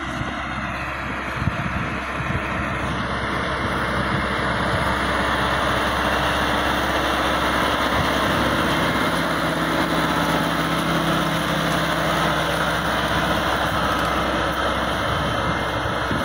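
Massey Ferguson 385 tractor's four-cylinder diesel engine running steadily under load while pulling a disc harrow through dry soil.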